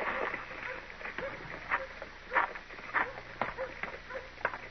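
Old-time radio drama sound effects: a series of irregular sharp knocks, about one or two a second.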